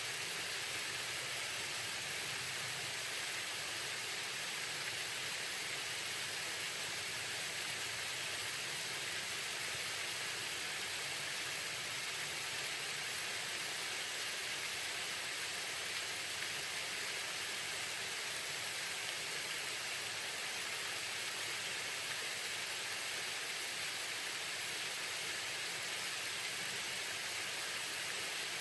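Waterfall running steadily: an even, unbroken hiss of falling water.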